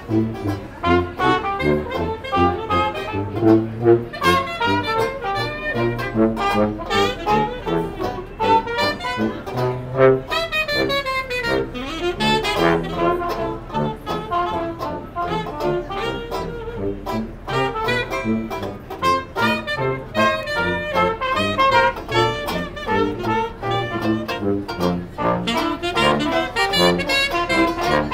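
Small jazz band playing a lively tune together: brass horns and saxophone carry the melody over a strummed banjo and a tuba.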